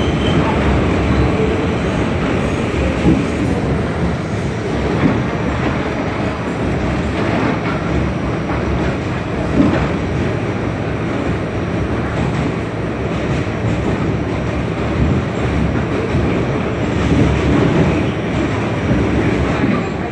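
Kawasaki R68A subway car running along the track, heard from inside the car: a steady rumble of steel wheels on rail, with a few sharp clacks over the rail joints.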